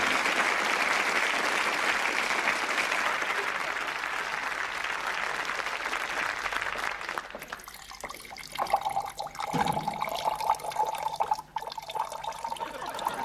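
Audience applause dying away over several seconds. Then water pours from a glass jug into a glass for a few seconds, with a wavering trickling tone and a couple of light clinks.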